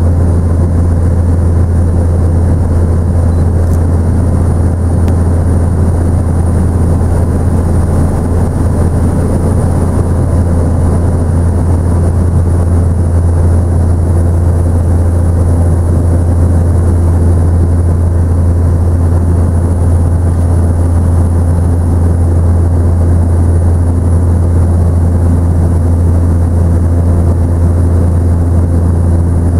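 Helicopter in level flight heard from inside the cabin: a loud, steady deep drone of rotor and engine, with a thin high whine above it.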